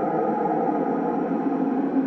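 Steady radio static: an even hiss, mostly in the lower-middle range, with faint steady tones running through it.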